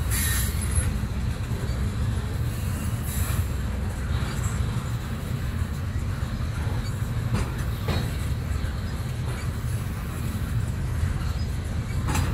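Tank cars of a long freight train rolling past on the rails: a steady low rumble of wheels on track, with a few short sharp clanks now and then.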